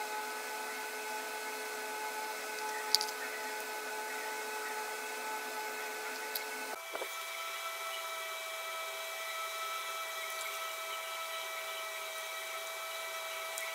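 A small electric motor running with a steady whine. About seven seconds in it breaks off briefly and resumes at a different pitch.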